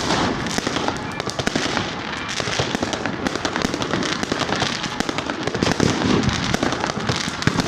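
Fireworks going off in a dense, continuous barrage of many sharp cracks and bangs.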